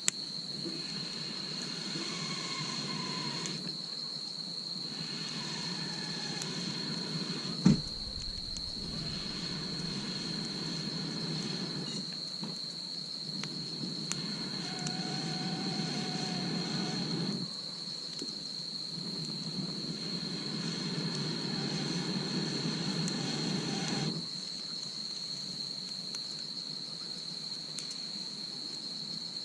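Insects trilling in one steady, high, unbroken note, over a lower rushing noise that comes and goes in stretches of a few seconds; a single sharp knock about eight seconds in.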